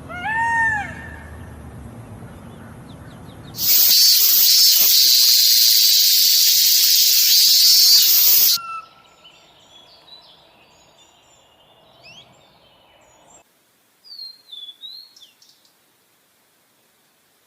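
A run of separate animal sounds. It opens with one short pitched call that rises and falls, then comes a loud steady hiss lasting about five seconds, and then a few faint bird chirps.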